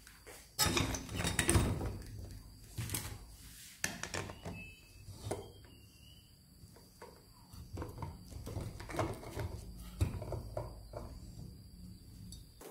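Workshop handling noises: wooden boards and a metal drill bracket being moved and set down, giving several knocks and clunks, the loudest in the first two seconds and one sharp knock about ten seconds in.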